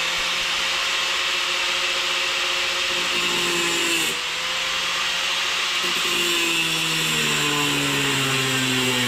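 Power tool with a cutoff wheel running and cutting off the excess end of a steel axle shaft, with a high grinding hiss over its motor whine; the pitch dips about four seconds in and sags lower over the last few seconds as the wheel comes under load.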